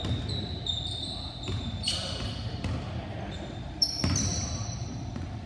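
A basketball bouncing on a hardwood gym floor, a few bounces with the loudest about four seconds in, amid short high-pitched sneaker squeaks from players moving on the court.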